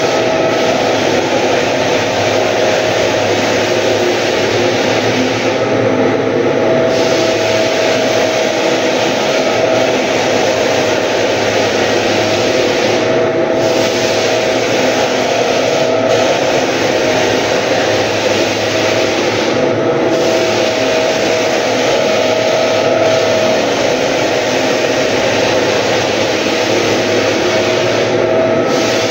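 Walk-behind drum floor sander running continuously, its motor giving a steady whine under the grinding hiss of the abrasive drum on a wooden floor. The hiss thins briefly every several seconds.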